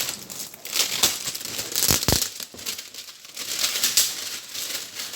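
Plastic and paper wrapping of firecracker packets crinkling and rustling as they are handled, with a thump about two seconds in.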